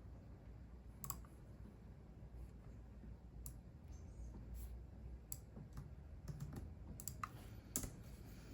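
Computer keyboard typed on slowly and unevenly: scattered single keystrokes, with a quicker run of them near the end.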